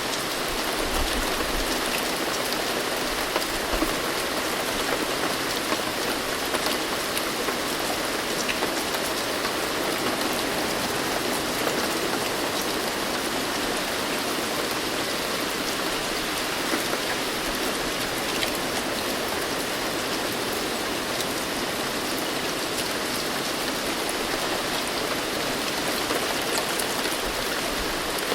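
Steady rain falling, a continuous even hiss with scattered drop ticks and no pauses.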